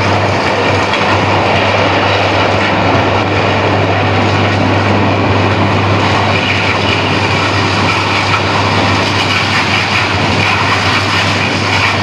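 Precious-metal refining reverberatory furnace in full operation during a violent reaction of its charge: a loud, steady roar with a low hum underneath.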